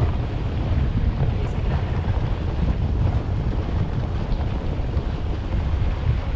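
Wind noise on the microphone of a camera mounted outside a vehicle, over the low steady rumble of the vehicle rolling along a dirt track.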